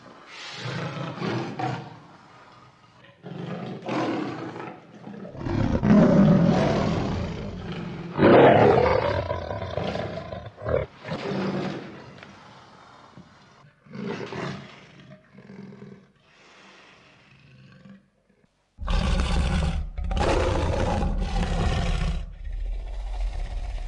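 A string of animal roar and growl sound effects, one after another with short gaps between them. After a brief silence about three-quarters of the way through, louder roars begin over a deep rumble.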